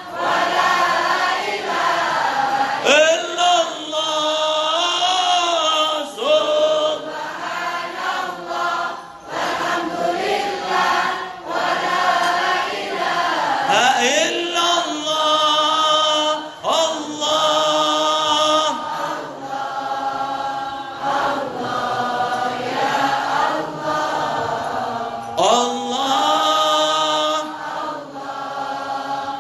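A group of voices singing a devotional chant, with women's voices singing the backing.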